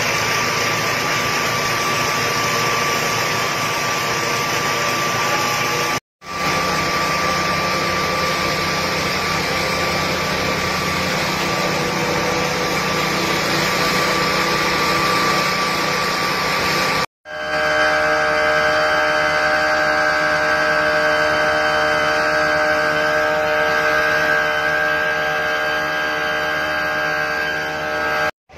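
Fire pump engines running steadily at speed, a continuous mechanical drone with a steady whine over it. It cuts out briefly twice, about six and seventeen seconds in; after the second break the engine's pitched hum is stronger.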